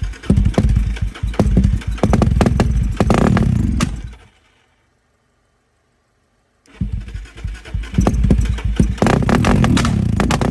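2002 Suzuki DR-Z400E's single-cylinder four-stroke engine firing unevenly as it is started, running briefly, then dying out about four seconds in. After a couple of seconds of silence it sputters again and catches, running steadily near the end: a hard-starting engine.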